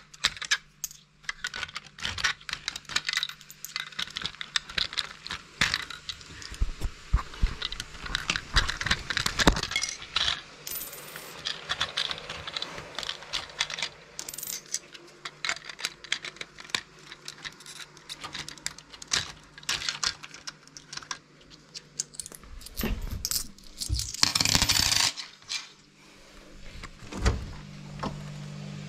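Coins and plastic Lego parts clinking and clicking irregularly as they are handled in and around a Lego wagon, busiest in the first half, with a short loud rustling burst a few seconds before the end.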